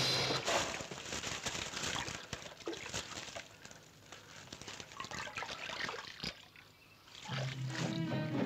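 Water splashing and sloshing in a muddy stream as someone thrashes in it, with irregular splashes that thin out and grow faint by the middle. Music comes back in near the end.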